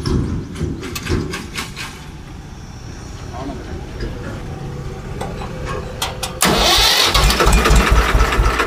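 Swaraj 724 FE tractor's diesel engine being started: a few sharp clicks, then about six seconds in the engine catches and runs loudly with a low, even pulsing.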